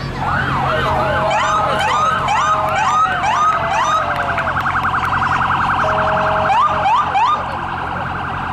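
Sheriff's patrol SUV siren sounding in short rising whoops, about three a second, then switching to a fast rapid warble for a few seconds, with a few more rising whoops near the end before it drops off.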